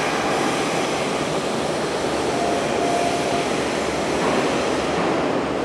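Hanshin electric train running along the rails through the station, a steady rumble of wheels and running gear, with a brief high tone about two and a half seconds in. The sound ends abruptly at the end.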